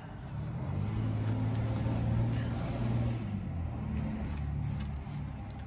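A motor vehicle's engine running close by, swelling to its loudest a couple of seconds in, then dropping in pitch and fading, like a vehicle passing.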